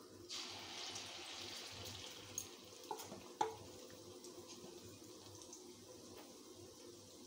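Moong dal batter dropped into hot oil in a kadai, setting off a hissing sizzle about a third of a second in that slowly dies down to a faint frying crackle. A few light clicks sound in the middle.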